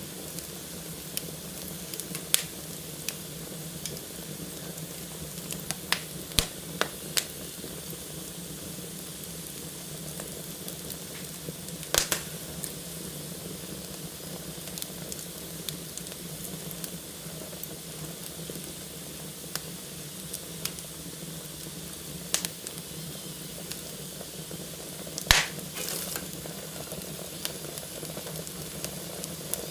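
Wood fire burning in a fireplace: a steady hiss with irregular sharp crackles and pops, the loudest about twelve seconds in and again near twenty-five seconds.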